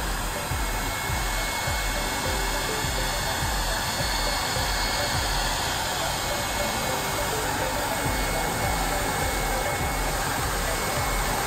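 Electric blower of an Airsled VM2400 vending mover running steadily with a high-pitched whine, pumping air into the air sled so a piece of gym equipment floats on an air cushion.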